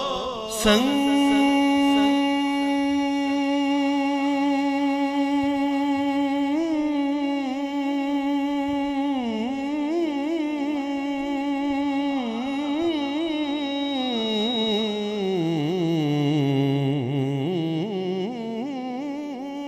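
A man's voice sings a naat rubaiyat unaccompanied, drawing one syllable out into a long held note of about six seconds. It then winds through an ornamented, wavering melody that dips lower and climbs back near the end.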